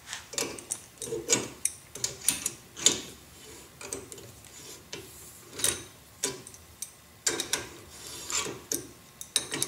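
Steel wrenches clinking and clicking on a tap as it is fitted and turned through a rotor retaining nut in a vise, chasing its 7/8-9 threads. The sharp metal clicks and knocks come at irregular intervals.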